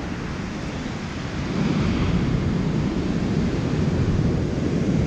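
Ocean surf and wind buffeting the camera microphone: a steady rumbling noise that swells louder about a second and a half in.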